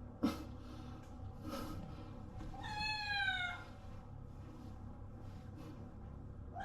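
A black tabby cat gives one long, drawn-out meow that falls slightly in pitch, a distressed cry at being bathed. A short knock comes just before it, near the start.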